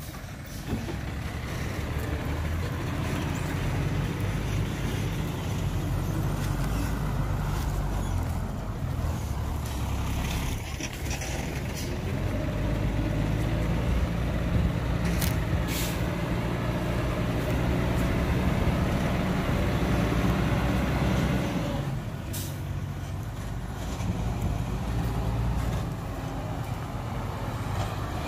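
Heavy dump truck's diesel engine running steadily, with two short hisses about halfway through and another a few seconds later.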